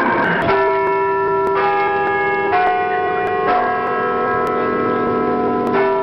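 Bell chimes in a show's intro jingle: a new note struck about once a second, each ringing on under the next.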